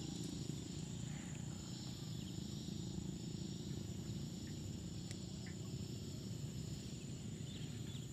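Insects droning steadily in a high, thin tone over a low, even rumble, with a few faint short chirps.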